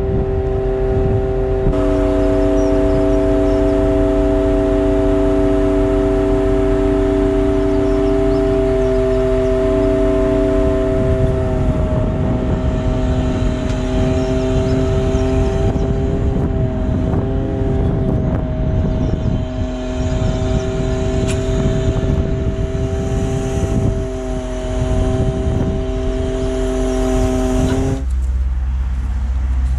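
Truck-mounted hydraulic loader crane lifting a pallet of stones, its hydraulic pump driven by the running truck engine, giving a steady hum whose pitch shifts slightly a few times as the crane works. The hum cuts off suddenly near the end.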